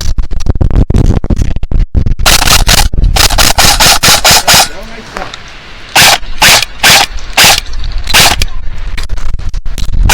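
Airsoft rifle firing a string of rapid single shots, sharp clicks about five a second, then a second run of separate shots a little later, over a low rumble of handling noise.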